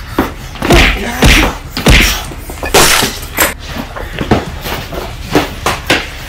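Scuffling and a string of loud, irregular thumps and knocks as two people grapple and struggle on a floor, with the camera being knocked about.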